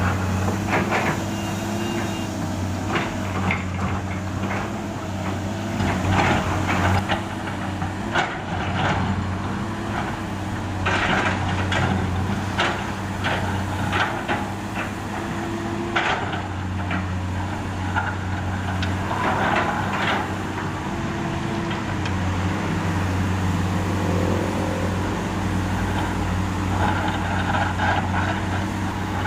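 Heavy diesel engine of a Komatsu PC200 excavator running steadily, with frequent sharp clanks, knocks and scrapes from digging and loading broken asphalt into a dump truck.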